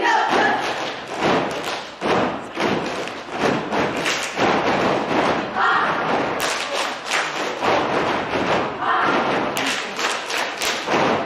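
A step team stomping and clapping in rhythm on a gym floor: fast runs of sharp hits with a few short breaks, and voices calling out at times.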